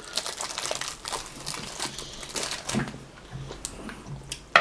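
Kinder Chocolate bar wrappers crinkling and tearing as they are hurriedly opened, a run of scattered crackles. A short, loud high-pitched sound cuts in near the end.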